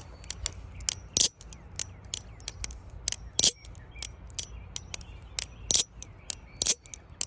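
Squid Industries Mako V3 aluminium washer-pivot balisong being flipped: irregular sharp metallic clacks and clicks, a few a second, as the handles swing around the pivots and strike each other. The rattly sound is called disgusting, "like trash".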